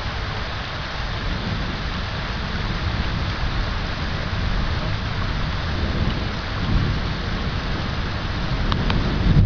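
Heavy rain falling steadily on palm fronds and garden foliage, a dense even hiss, with a fluctuating low rumble underneath.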